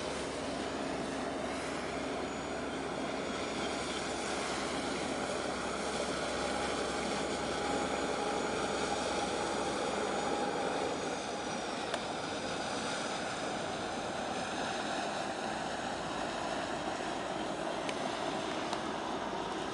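Steady distant engine drone over a noisy background, swelling a little around the middle.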